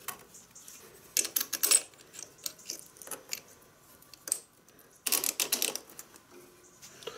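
Metal exhaust-silencer clamp and its bolt being handled and fitted around a motorcycle silencer: light metallic clicks and jingling, in a flurry about a second in and another about five seconds in.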